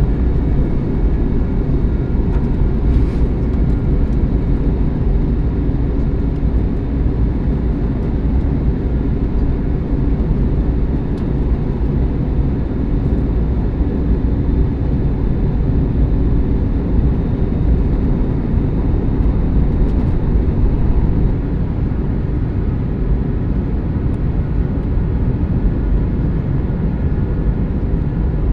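Airbus A321neo LR in flight on its way in to land, a steady low rumble of engines and airflow with faint steady tones above it.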